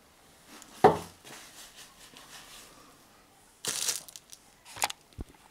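Plastic packaging being handled: a sharp knock about a second in, as of something set down on the table, then short bursts of crinkling plastic wrap near the end.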